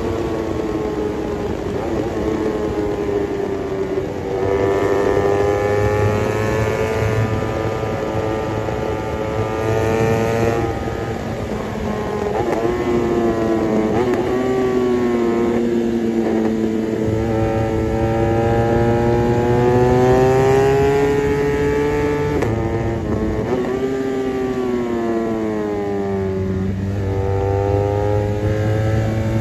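BMW 1200 motorcycle engine under way, accelerating. Its pitch climbs slowly and then drops sharply several times as it shifts gear.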